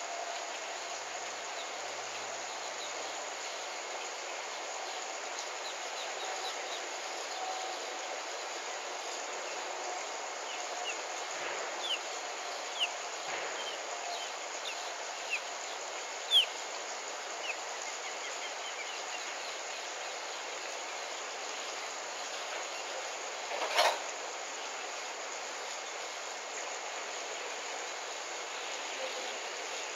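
Steady outdoor background hiss from an open-air enclosure, with a few short, high, falling chirps in the middle and a single sharp click about 24 seconds in.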